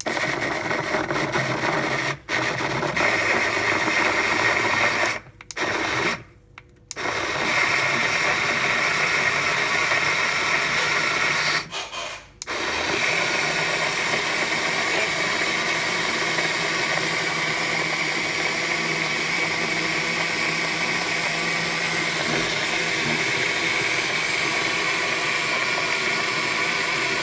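Portable rechargeable cup blender's motor running as it blends a thick berry smoothie. It stops briefly four times in the first thirteen seconds, then runs steadily. The owner finds the motor underpowered.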